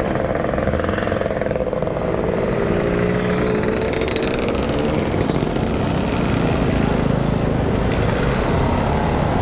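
A procession of Lambretta and Vespa scooters riding slowly past one after another, their small engines running steadily, with one engine's note sinking as it goes by about halfway through.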